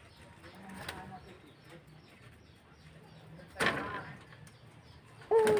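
A dove cooing: a short, steady-pitched coo starts near the end, after a brief, sharp noisy sound about two-thirds of the way through.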